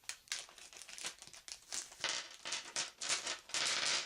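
A plastic bag of game dice crinkling and rustling as it is handled and opened, in a string of short bursts that grow louder toward the end.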